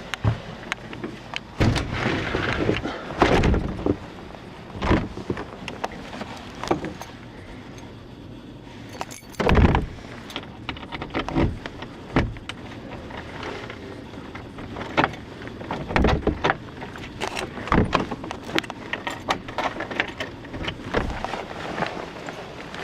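Scattered knocks, thumps and rattles, the loudest thuds about three, ten, sixteen and eighteen seconds in. These are the sounds of a person making his way outdoors, working doors and keys.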